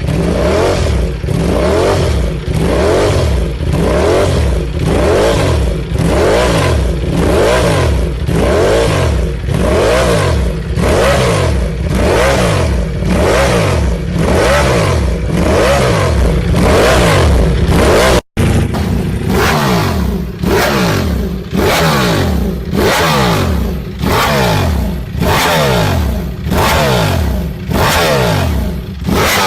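Ducati Panigale V4's V4 engine through an aftermarket exhaust, revved again and again, its pitch rising and falling about once a second. It drops out for an instant about two-thirds of the way in, then the revving carries on.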